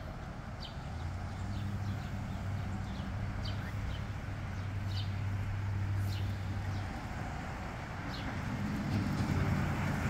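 A motor vehicle's engine runs as a steady low hum, dipping about seven seconds in and returning louder near the end. Short, high bird calls sound now and then over it.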